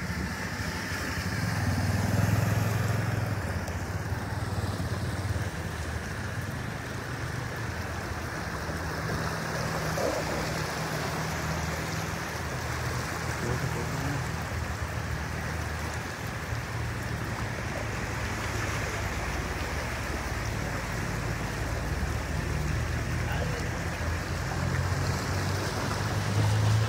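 A vehicle engine hums steadily as it drives slowly through a flooded street, over a constant wash of water splashing and rushing around the wheels.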